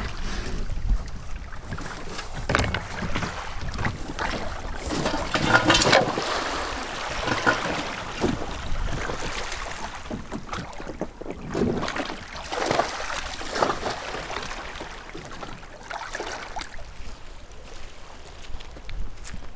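Shallow water splashing and sloshing in irregular surges around an inflatable dinghy and a person wading beside it.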